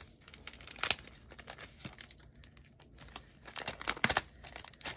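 Thin plastic packaging sleeve crinkling and rustling as sheets of nail-art stickers are worked out of it. The crackles come unevenly, loudest about a second in and again around three and a half to four seconds in.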